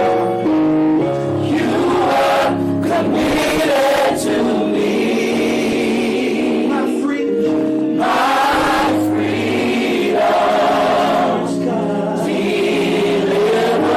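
Gospel choir singing with instrumental accompaniment, voices holding long notes and moving between chords.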